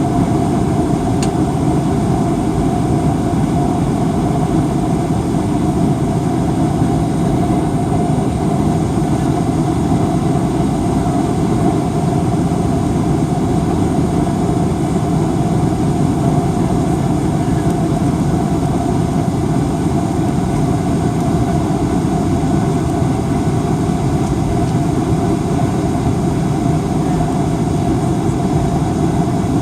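Steady cabin noise of a Boeing 737-800 airliner: a constant deep rumble of the CFM56 engines and rushing air, with a steady hum over it.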